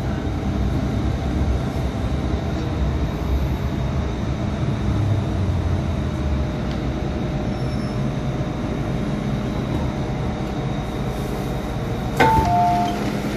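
MTR M-Train carriage heard from inside at a door, rolling slowly into a platform with a steady low rumble from the wheels and running gear. Near the end it has stopped, and a loud clunk is followed by a two-note falling chime as the doors open.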